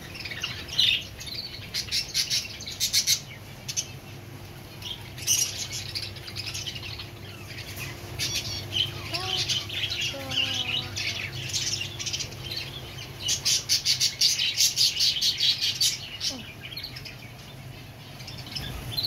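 Many caged small birds chirping and twittering together in quick runs of high chirps, loudest in clusters about a second in, around five seconds in, and again about fourteen to sixteen seconds in.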